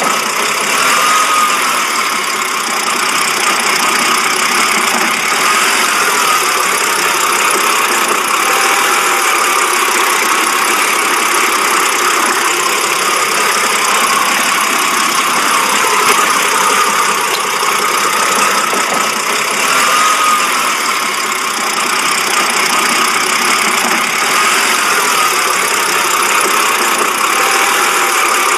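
BMW engine idling roughly, running steadily throughout.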